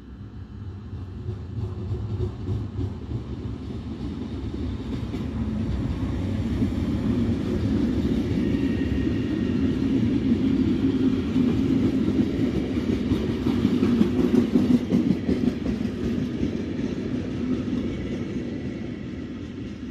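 Freight train hauled by an E494 electric locomotive passing through at speed, its empty intermodal flat wagons rumbling and rattling along the rails. It grows louder to a peak about two-thirds of the way through, then fades as the last wagons go by.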